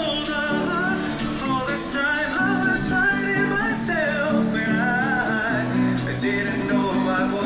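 Acoustic guitar strummed in a steady, repeating chord pattern, with a wavering high melody line over it.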